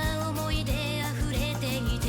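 Background music with a steady beat, bass line and melodic instruments.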